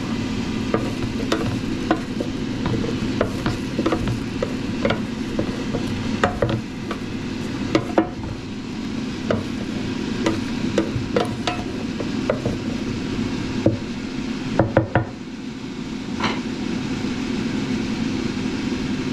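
Wooden spatula stirring hot roasted butternut squash and carrot cubes in a Ninja air fryer's basket: irregular scrapes and light knocks of the wood against the basket, about one or two a second.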